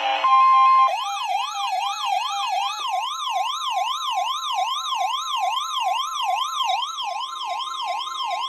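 NOAA Weather Radio's 1050 Hz warning alarm tone comes on, and about a second later a weather alert receiver's electronic siren starts, sweeping up and down about three times a second. The steady alarm tone goes on underneath. This is the receiver being set off by the weekly test of the alarm tone.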